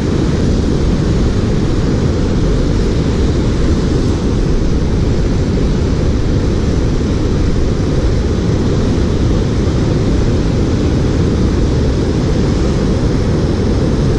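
Water pouring over a low rock falls in a creek: a steady, unbroken rushing noise, heaviest in the deep range.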